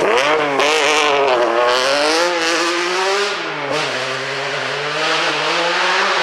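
Lancia Stratos HF rally car's engine revving hard as it accelerates away on a loose gravel stage, the pitch climbing and dropping through gear changes, with bursts of gravel and leaves thrown up by the tyres in the first two seconds. After about four seconds the engine note settles lower and steadier as the car draws away.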